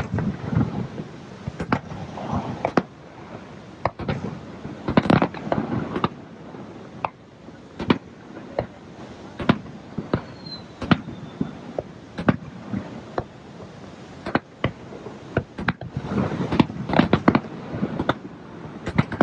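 Aerial fireworks bursting in a steady series of sharp bangs, about one a second, with denser flurries of bursts about five seconds in and again near the end.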